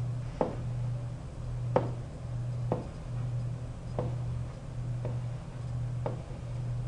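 A pen tapping and clicking on a writing surface about once a second as handwritten digits are put down, over a steady low hum.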